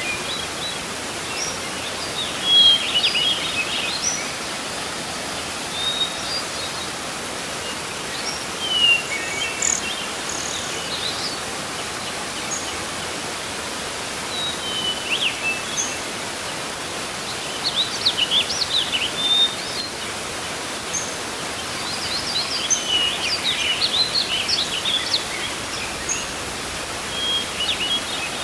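Waterfall's steady rush of falling water, with birds chirping and calling over it now and then, most busily a little past halfway and again towards the end.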